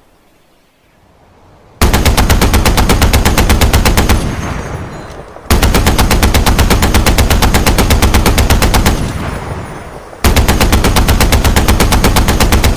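DShK 12.7 mm heavy machine gun firing three long bursts of rapid, evenly spaced shots, each two to three and a half seconds long. Each burst trails off in an echoing tail before the next one begins.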